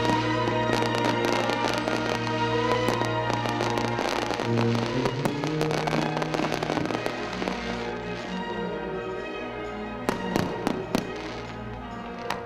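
Fireworks going off in quick succession with crackling, over music with long held notes. The bursts thin out after about eight seconds, with a few sharp separate bangs near the end.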